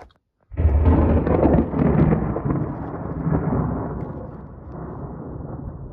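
Loud thunder: a thunderclap breaks suddenly about half a second in, is loudest over the next second or so, then rumbles on low and slowly fades.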